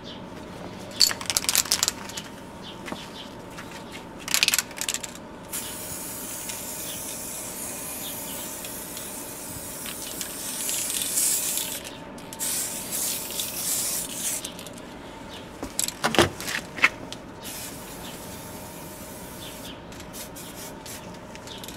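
Aerosol spray-paint can spraying: a hissing jet about halfway through, the longest lasting about two seconds, followed by a few shorter bursts. Scattered sharp clicks come before and after.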